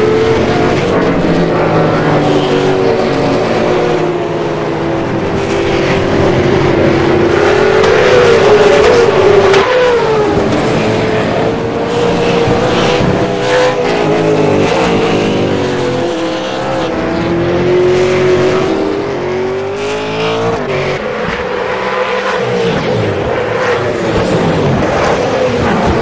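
Several race car engines running hard and overlapping, each pitch climbing as it revs and dropping back at gear changes, most clearly near the middle and about two-thirds of the way through.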